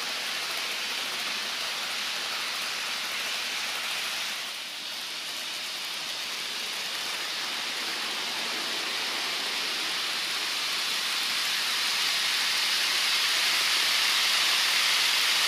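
Steady rushing hiss of HO scale model freight cars rolling past close by, a long string of ore cars running along the track. It dips briefly about four seconds in and grows louder toward the end.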